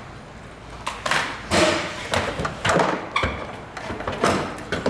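Irregular knocks and clatters of hard car parts being handled and pried during the teardown of a crash-damaged front end, about half a dozen sharp strikes.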